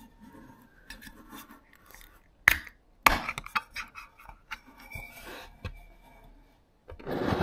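A small drink can handled on a wooden tabletop: sharp knocks of the can on the wood about two and a half and three seconds in, with lighter clicks and scrapes as it is turned, and a longer rough scrape near the end.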